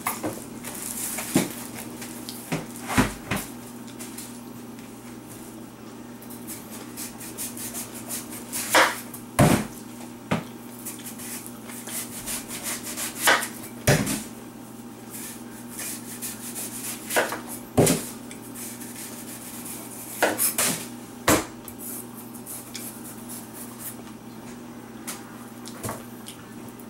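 Kitchen knife cutting the rind off a watermelon on a wooden cutting board: irregular sharp knocks of the blade and fruit against the board, over a steady low hum.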